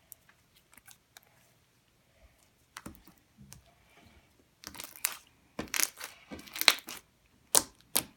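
Homemade slime being squeezed and poked by hand, making a run of sticky crackling and clicking pops that start about three seconds in and grow louder and busier toward the end.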